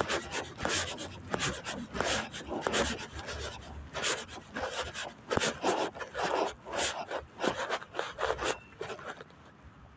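Rough rubbing and scuffing sounds, two or three a second, from someone walking while holding a phone to film. They stop about a second before the end.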